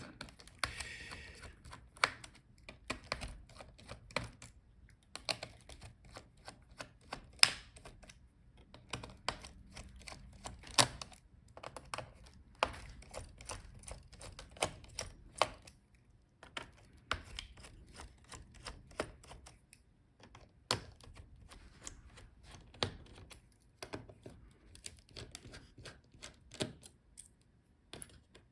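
Irregular small clicks and taps of a screwdriver and fingers working on a laptop's heatsink and cooling-fan connectors as the fans are disconnected.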